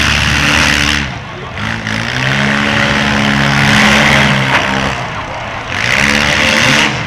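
Engines of several demolition derby cars revving as they drive about the arena, the pitch rising and falling with the throttle.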